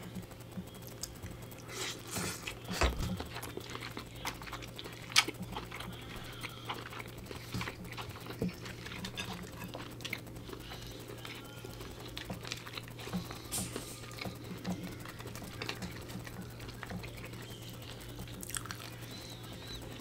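Close-up eating sounds: chewing on crab meat, with small clicks and crackles of crab shell being picked apart by hand, and one sharper click about five seconds in.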